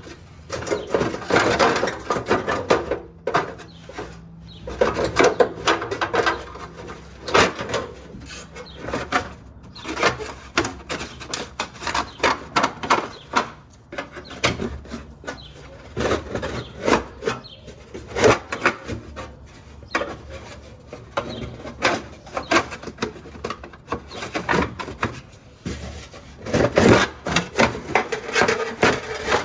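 Thin sheet-metal exhaust heat shield being bent and crumpled by hand, crinkling and clattering in irregular bursts.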